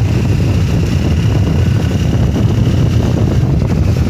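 Steady wind rush on the microphone over a motorcycle engine running at an even pace while the bike is ridden.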